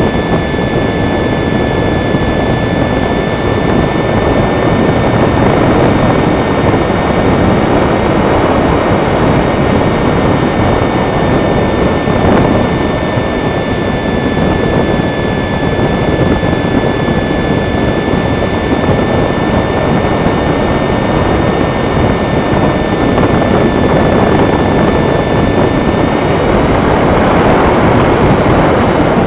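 Electric motor of a foam HobbyKing Fox RC glider whining at a steady high pitch, buried in heavy wind noise on the microphone in flight. The whine fades out near the end.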